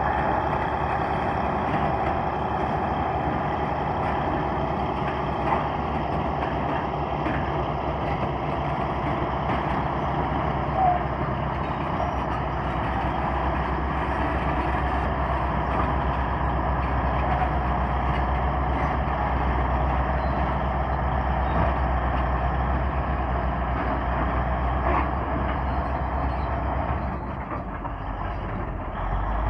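Komatsu D155A crawler bulldozer's diesel engine running steadily, with a few brief knocks over it. It eases off slightly near the end.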